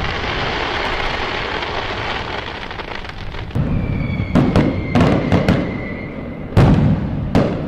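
Fireworks: the crackling tail of a burst fades over the first few seconds. Then comes a string of sharp bangs with a thin high whistle falling slightly in pitch, and a heavy boom about two-thirds of the way through.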